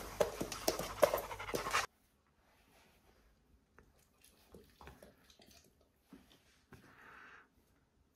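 A chocolate Labrador retriever panting, with claws clicking on a wooden floor. About two seconds in it cuts off abruptly, leaving only faint small taps and a short breathy hiss near the end.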